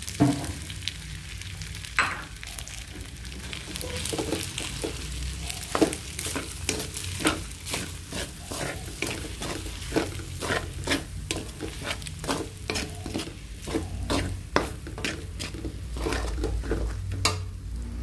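Ham and egg fried rice sizzling in a metal pan while a metal spatula stirs raw eggs into the rice, with many quick clicks and scrapes of the spatula against the pan. There is a sharp knock right at the start.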